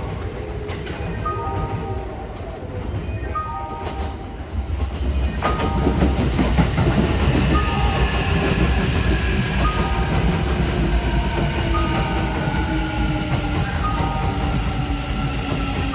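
Kintetsu 80000 series Hinotori limited express pulling in along the platform. A low rumble of wheels on rail swells about five seconds in, and the motor whine falls steadily in pitch as the train brakes. A short multi-note chime repeats throughout, about once a second at first, then every two seconds.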